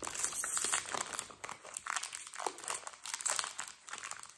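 Plastic wrapper of a pack of Ringo biscuits crinkling and rustling in a run of irregular crackles as it is opened by hand.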